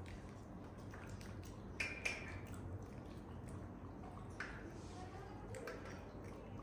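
A monkey eating: soft wet smacking with two sharp clicks about two seconds in and a brief high chirp about four and a half seconds in.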